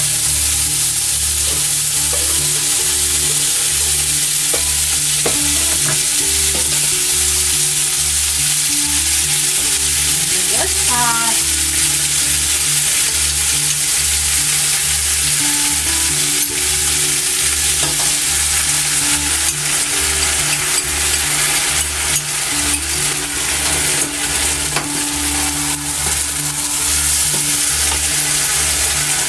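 Pork, potato, eggplant and peppers sizzling in a hot pot as they are stirred with a wooden spatula: a loud, steady frying hiss. Under it runs a low pulsing beat, and a brief squeak comes about a third of the way in.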